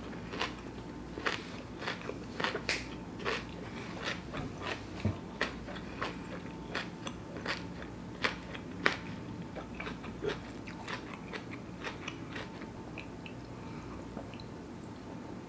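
Close-up mouth sounds of someone chewing a bite of a fresh spring roll, a rice-paper roll of raw vegetables, dipped in sweet chili sauce. Many small wet, crunchy clicks come thick at first and thin out over the last few seconds.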